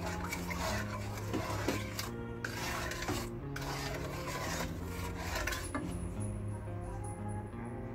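A spatula scraping and stirring thick sauce around a metal pan, with scratchy rasping strokes as the gochujang sauce cooks down to thicken. Background music with changing notes plays underneath.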